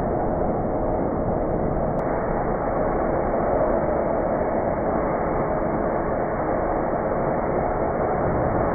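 Rain recording processed into a steady, muffled rumble, its high end filtered away so no separate drops stand out.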